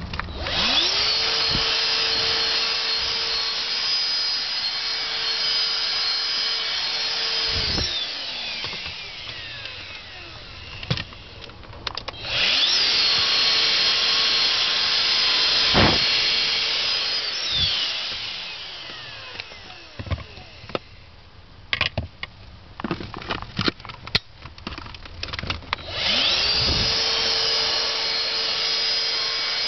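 Dyson DC16 Animal handheld vacuum's motor spinning up to a steady high whine, running for several seconds, then winding down with a falling pitch; it does this three times, switched on and off with its trigger. Between the second and third runs there are scattered clicks and knocks.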